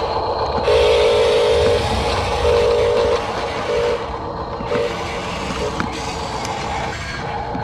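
Small electric drive motors and gearboxes of a radio-controlled construction model whining in short bursts over a steady mechanical hiss, as the machine is driven in quick stop-start moves.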